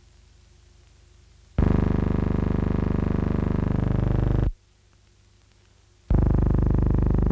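A loud, steady buzzing tone with many overtones, like a synthesizer or organ chord. It cuts in suddenly about a second and a half in, stops abruptly three seconds later, and cuts in again near the end.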